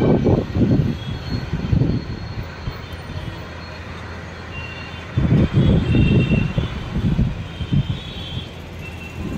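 Storm wind buffeting a phone microphone: an irregular low rumble in gusts, easing for a couple of seconds mid-way and surging again about five seconds in.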